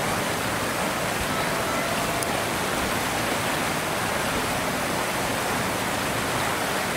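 Steady, even rushing noise.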